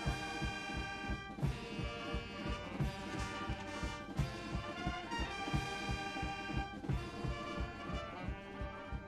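Brass-band music with held chords over a steady beat.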